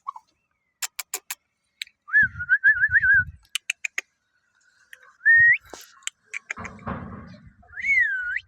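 A person whistling short tunes: a wavering trill, a quick rising whistle and a swooping one near the end. Sharp clicks come between them, with some low rumbling handling noise.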